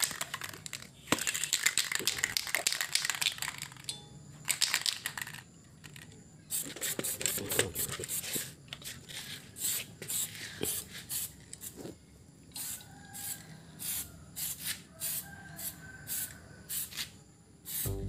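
Aerosol spray paint can being shaken, its mixing ball rattling in many quick irregular clicks, with short hissing bursts of spray in the first few seconds.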